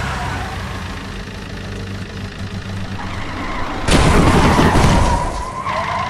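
Cartoon sound effects of a car: an engine runs steadily, then a loud crash about four seconds in as the car smashes through a wire fence.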